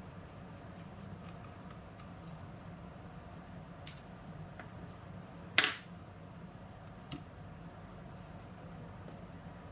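Small clicks and ticks of hands working on a mini PC's internals. A few faint taps, then one sharper, louder click a little over halfway, then a few more light ticks near the end, over a low steady hum.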